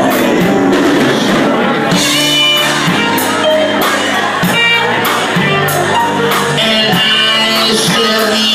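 Live band playing a loud number with a steady drumbeat, bass guitar and keyboard.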